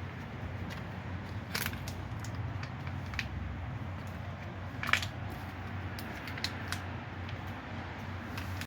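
Scattered metallic clinks and knocks of hand tools and brake parts during a front brake pad change, the loudest about five seconds in, over a steady low hum.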